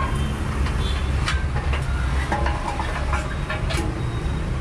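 Steady low rumble of street traffic, with a few light metallic clinks from a motorcycle's front mudguard and wheel parts being handled.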